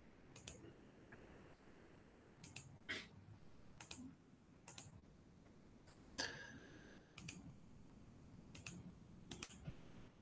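Sparse, irregular clicking at a computer, about nine sharp clicks a second or so apart, with one longer, rougher sound about six seconds in, while a screen share is being set up.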